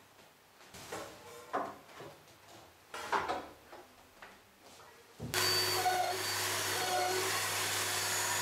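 A few short knocks and scrapes as a metal guide rail is handled on the bench top. About five seconds in, a Festool OF 1010 plunge router and its dust extractor start and run steadily, routing the 19 mm dog-hole rows into the workbench top.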